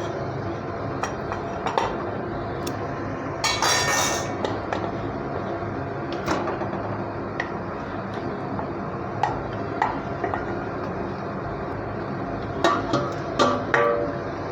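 Fried chicken pieces being put into boiling gravy in a kadai: scattered knocks and clinks of utensil against the pan over a steady simmer, with a short louder burst of noise about three and a half seconds in and a cluster of knocks near the end.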